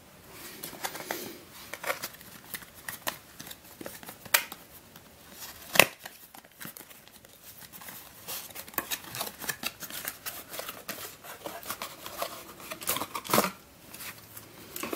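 Hands handling a small white cardboard puzzle box: flaps opened and the puzzle slid out, with many small rustles, scrapes and clicks. A sharp click about six seconds in is the loudest.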